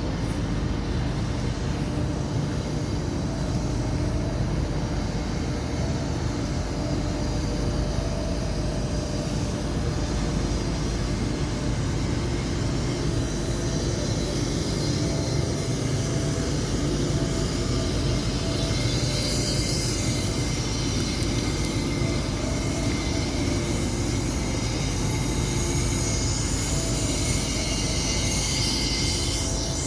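Large mobile crane's engine and machinery running steadily, with a constant droning hum. A higher hiss or whine swells briefly about two-thirds of the way through and again near the end.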